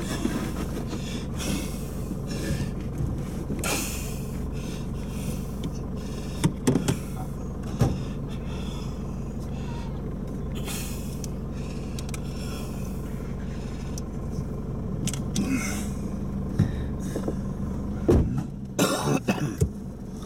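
A four-wheel-drive's engine idling steadily, with several brief knocks and rustling noises, a cluster of them near the end.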